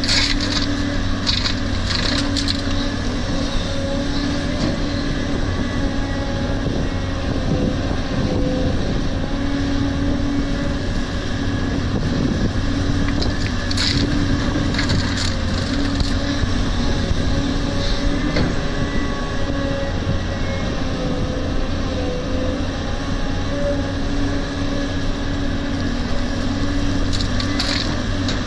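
Caterpillar 320D excavator's diesel engine and hydraulics running steadily under load while it loads laterite into a ten-wheel dump truck. Loads of laterite crash into the truck's steel bed at the start, again about halfway through, and near the end.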